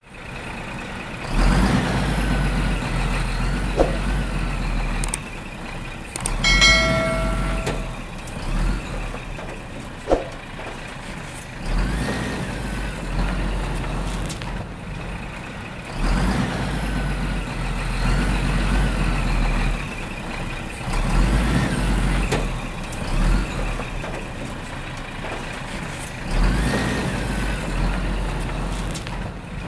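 Heavy-vehicle engine sounds of a backhoe and dump truck, a deep rumble that swells and drops back every few seconds, with one horn honk lasting about a second and a half at about six and a half seconds in.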